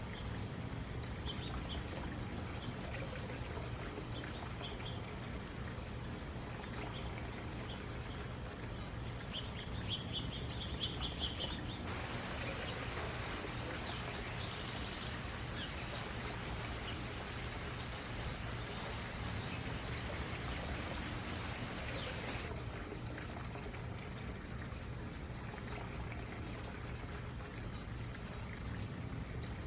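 A stream running and trickling steadily, with short high bird chirps now and then, a quick run of them about ten seconds in. The water grows louder in its hiss for about ten seconds from roughly the middle, then settles back.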